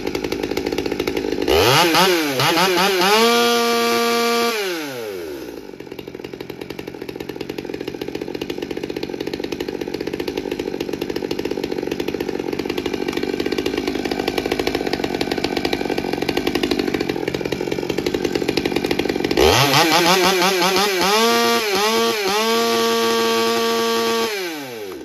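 Stihl MS200T two-stroke top-handle chainsaw running on a donor carburettor after a cold start. It idles steadily and is revved up to full throttle twice, near the start and again near the end, holding each rev for a couple of seconds before dropping back.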